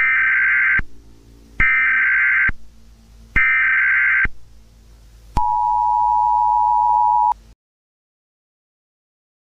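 Emergency Alert System tones: three short bursts of screeching data tone, then the two-pitch attention signal held for about two seconds before it cuts off.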